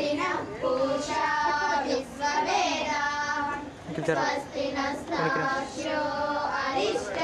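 Women singing a traditional cradle song together, in long held notes with wavering pitch and short breaks between phrases.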